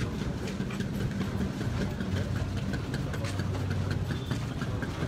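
A van's engine running slowly with a steady low hum, mixed with the shuffle of many footsteps of a walking crowd.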